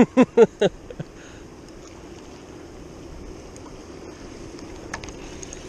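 Fast river water running over a shallow riffle: a steady, even rushing. A few quick spoken syllables come at the very start.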